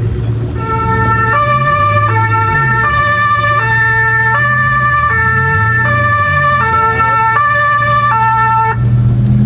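Two-tone police-style siren fitted to a BMW M5, switching between a high and a low note about every three-quarters of a second and cutting off shortly before the end, heard from inside the car. The M5's V10 idles steadily underneath.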